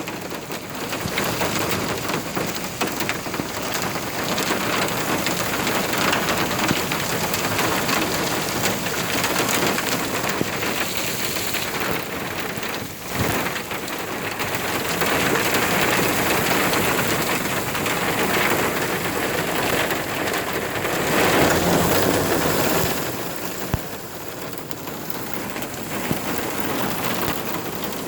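Heavy desert rain pouring down, a continuous hiss that swells louder and eases back a few times.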